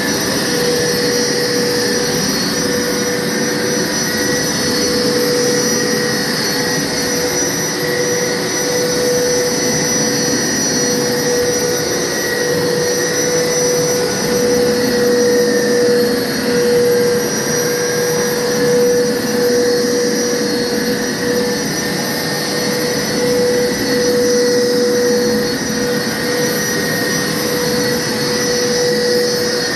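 Hoover carpet washer running steadily in wash mode, its motor giving a constant whine over the rush of suction, with a higher tone that slowly wavers up and down as the machine is worked over the carpet.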